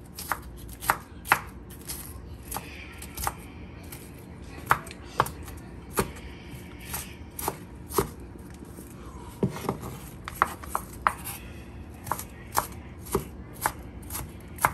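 Kitchen knife chopping red onion on a wooden cutting board: sharp knocks of the blade striking the board, irregular, roughly one a second.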